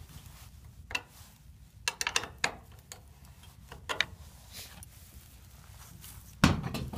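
Steel wrench clicking and clinking on a bolt head and washers as the wheel assembly's pivot bolt is tightened by hand, in scattered sharp ticks with a quick cluster about two seconds in. Near the end comes one heavy thump as the wooden wheel arm is grabbed and moved.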